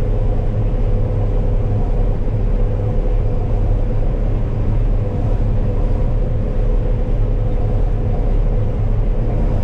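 Combine harvester running while cutting soybeans, heard from the operator's seat: a steady, loud machine drone with a deep rumble and a constant hum.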